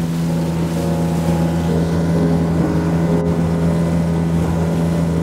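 Small boat's outboard motor running at a steady high speed across choppy water, a constant drone with wind rushing over the microphone and water rushing past the hull.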